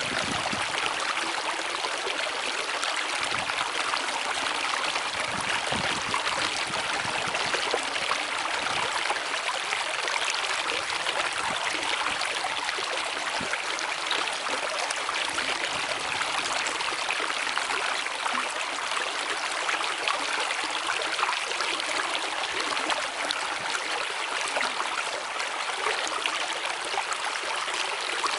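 Water of a stream rushing and babbling steadily, with a fine crackle over an even roar.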